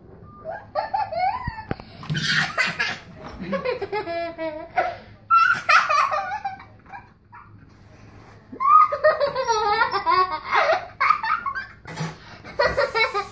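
A girl laughing hard in several fits of giggling, with breathy pauses between them and a short lull in the middle.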